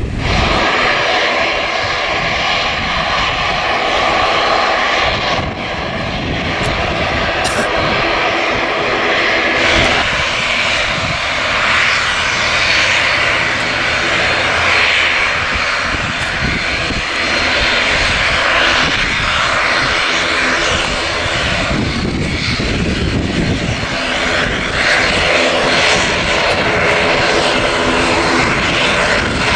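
ATR 72-600's twin turboprop engines running as the airliner taxis: a loud, steady engine noise over a low propeller hum. The sound comes in suddenly at the start.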